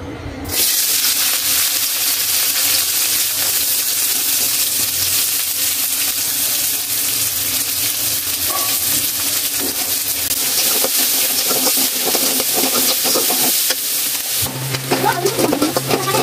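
Sliced onions hit hot oil in a kadai about half a second in and sizzle steadily as they fry. Near the end a spatula stirs them, scraping in the pan.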